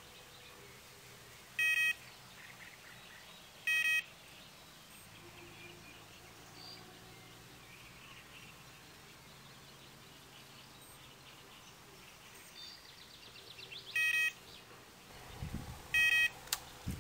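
Electronic carp bite alarm on a rod pod giving four single beeps, two a couple of seconds apart near the start and two more near the end, each one signalling line being drawn over the alarm: a bite. Near the end the rod is taken from the pod, with handling thumps and clicks.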